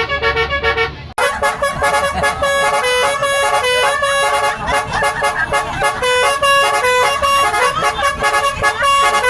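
Bus 'telolet' musical horn playing a tune of short notes that step up and down in pitch. About a second in it cuts abruptly to another horn melody.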